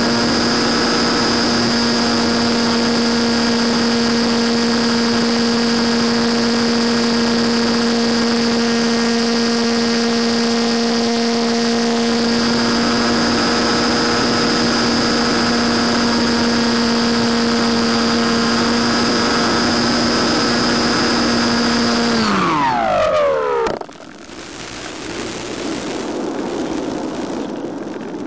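Electric motor and propeller of an FPV model plane running steadily under power with a high whine. About 22 seconds in, the power is cut and the pitch falls as the motor winds down to a stop. What follows is a softer rush of air as the plane glides.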